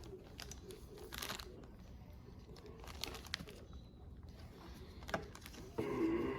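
Light handling noises of a solid-state drive being fitted to a PC motherboard: a few short scratchy rustles and small clicks, with a louder rustle near the end.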